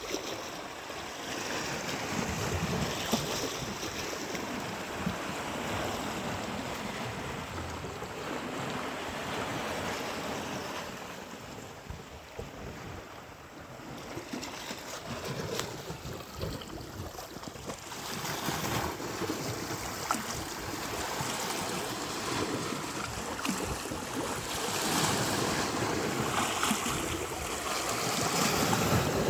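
Ocean waves breaking and washing up a beach, the surf swelling and ebbing in slow surges, with wind buffeting the microphone.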